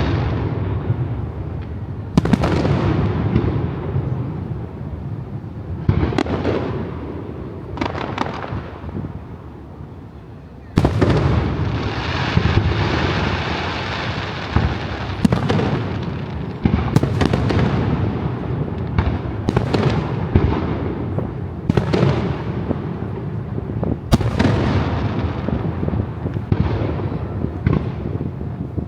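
Aerial fireworks display: a run of shell bursts booming at irregular intervals, each followed by a rolling rumble, with a lull partway through and then a dense volley of bangs and crackle about eleven seconds in.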